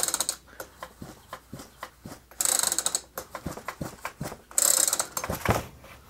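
Recoil starter of a Poulan Woodshark chainsaw being pulled over with its spark plug out, making ratcheting clicks throughout. Two hard pulls come about two and a half and four and a half seconds in, each with a loud rush. The engine is turning over and making compression.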